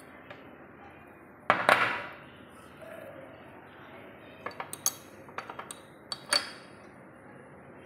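Sharp clinks of a spoon and containers against ceramic dishes and a glass table top. There is a louder clatter about a second and a half in, and a quick run of small clinks from about four to six and a half seconds.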